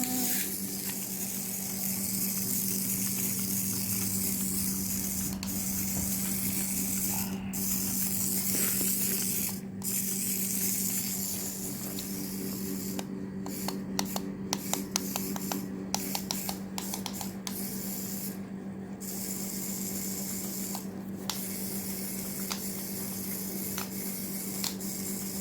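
Small electric motors of remote-controlled toy battle robots whirring, cutting in and out repeatedly, with a run of quick clicks and stops in the middle, over a steady hum.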